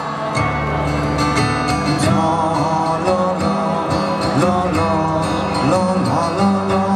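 Live band music played loud at a concert, with singing over it, and the crowd singing along.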